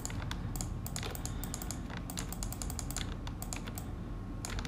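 Rapid, irregular clicking of computer input devices, mouse and keyboard, many small clicks a second over a faint steady hum.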